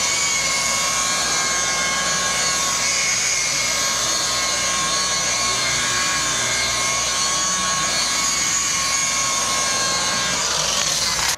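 Electric rotary buffer running steadily while polishing a boat's metal-flake gelcoat finish: a constant motor whine over the hiss of the pad. It stops abruptly at the end.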